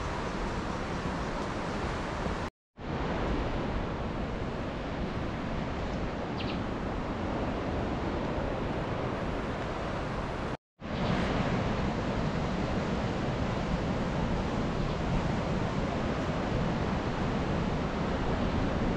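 Steady rush of ocean surf breaking on rocks below, mixed with wind, broken twice by a brief moment of dead silence.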